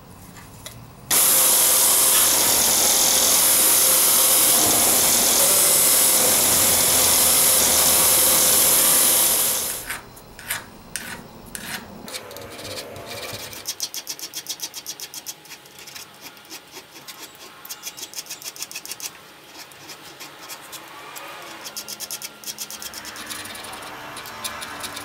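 A loud steady machine noise runs from about a second in until about ten seconds in. Then a steel slotted screw head is filed by hand, first with a flat file and then with a needle file in the slot, in short quick strokes.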